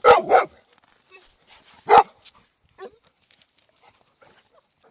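Golden retriever barking: two quick barks at the start and a single bark about two seconds in.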